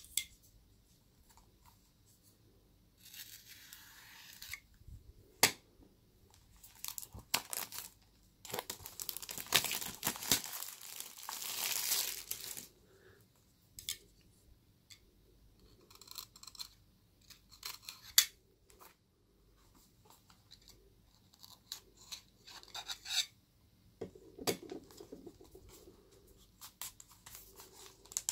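Scissors cutting and tearing the seal on a cardboard product box, in several stretches with the longest and loudest near the middle, between sharp taps and rustles of the box being handled.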